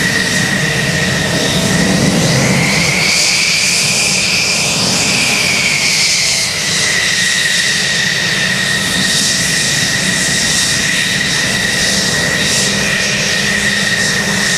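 Aircraft engine noise, with a steady high whine that rises in pitch a few seconds in and then settles back.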